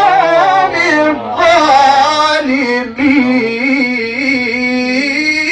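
Solo male Quran recitation in the melodic mujawwad style: the reciter holds the word "al-qawm" as one long melismatic vowel, with the pitch wavering in trill-like ornaments. The voice is dry, without added echo effects.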